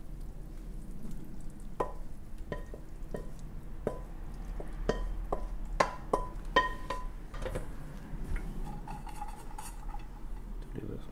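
Food being scraped and slid from a pan into a serving bowl: a run of sharp clinks, each with a brief ring, as the pan and spatula knock against the bowl. The clinks are thickest between about two and seven seconds in.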